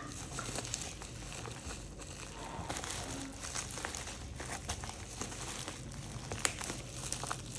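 Plastic packaging crinkling as it is handled and opened, with scattered small clicks and crackles.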